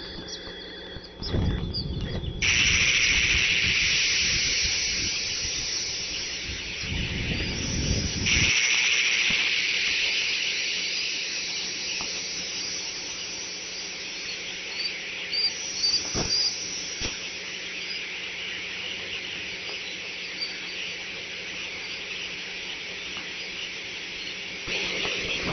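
Steady high hiss that comes in abruptly about two seconds in, over a low rumble that lasts until about eight seconds in. A few faint, short high chirps come about fifteen seconds in, with two small clicks just after.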